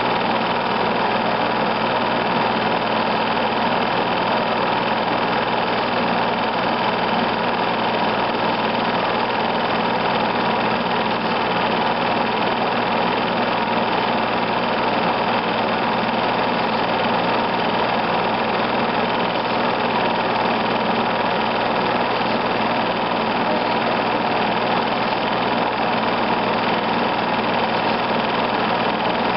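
Film projector running with a steady, even mechanical whir and hum that never changes.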